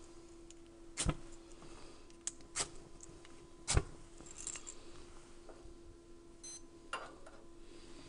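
Several sharp metallic clicks and knocks as the brass Trangia spirit burners on the stove grate are handled and lit; the loudest knock comes nearly four seconds in. A short electronic stopwatch beep follows near the end.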